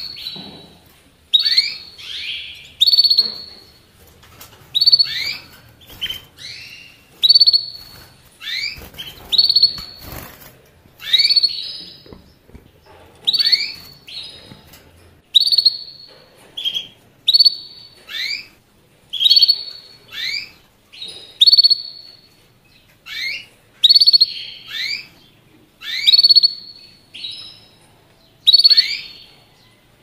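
A finch, such as a canary or goldfinch, giving short bright calls about once a second, each with a note that slides downward.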